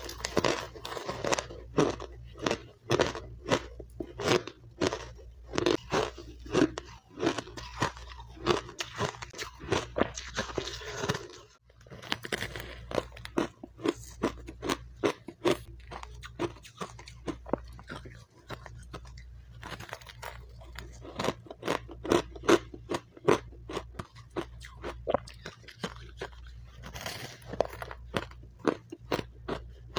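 Close-miked biting and chewing of powdery refrozen matcha ice: quick, crisp crunches, a few each second, with a brief break about a third of the way through.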